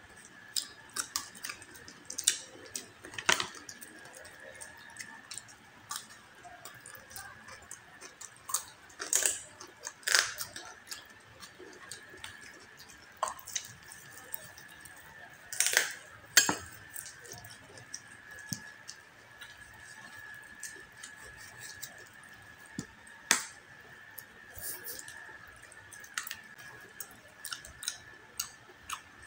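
Close-miked eating of crispy pata (deep-fried pork leg): chewing with wet mouth clicks, finger licking and scattered sharp crackles from the crisp skin, with a knife working on the meat on a wooden board. A steady faint high tone runs underneath.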